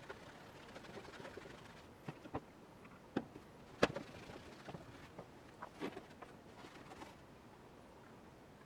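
Scattered light knocks and clicks of hand work on a rusty iron tool, with a few brief scraping sounds between them; the sharpest knock comes about four seconds in.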